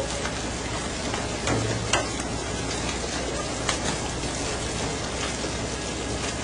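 Steady rush of sea water and spray churning along a fishing boat's hull, over a low steady hum, with a few sharp knocks, the loudest about two seconds in.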